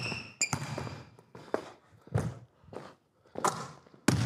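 A basketball being dribbled on an indoor court: about seven irregular bounces, each with a short echo off the hall. Sneakers squeak briefly on the court in the first half second.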